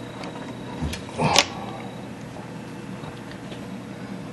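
Wooden clock case being handled, most likely its door being opened: a click just before a second in, then a short knock and rattle about a second and a half in, over a steady room hum.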